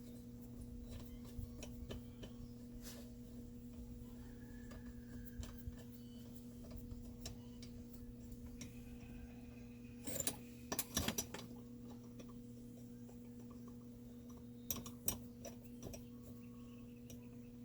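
A few light metal clicks and clinks from hand tools and bolts as the cylinder bolts of a Stihl 036 chainsaw are run down, in short clusters about ten and fifteen seconds in, over a steady low hum.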